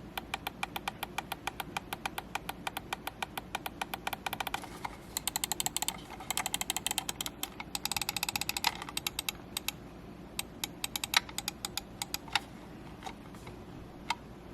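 Ninjutso Origin One X gaming mouse's notched scroll wheel being rolled, its defined steps ticking sharply, about seven ticks a second at first, then in quicker runs, thinning to spaced single clicks after about ten seconds. A steady low hum sits underneath.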